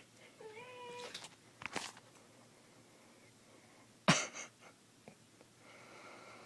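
Domestic cat giving one short meow about half a second in, then a faint click and, about four seconds in, a single sharp tap.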